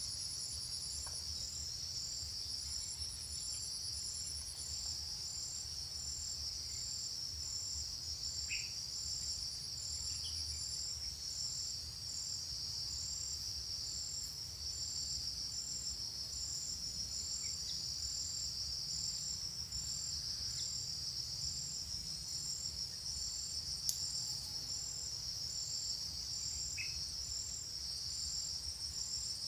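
Steady high-pitched insect chorus: one continuous trill with a faster pulsing trill above it, and a few faint short chirps now and then.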